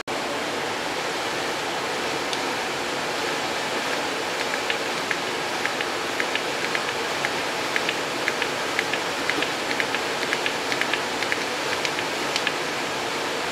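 Steady hiss with light, irregular clicking from about a third of the way in, several clicks a second, as a hand grease gun pumps grease through a fitting into a lawn-tractor transaxle's differential.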